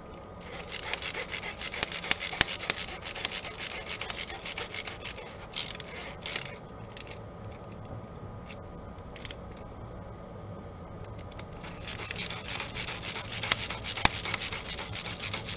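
A screw being turned by hand into a 3D-printed plastic part with a hex tool, making a dry scraping rasp as the threads bite. It comes in two spells, over the first five seconds and again from about twelve seconds on, with a quieter gap between.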